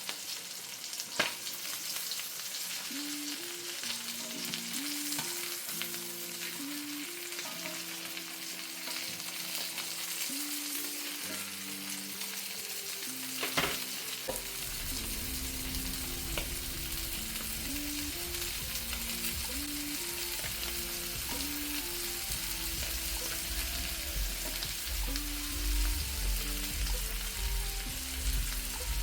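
Breaded chicken pieces frying in hot oil and butter in a pan, a steady sizzle, with two sharp knocks, one about a second in and one about halfway.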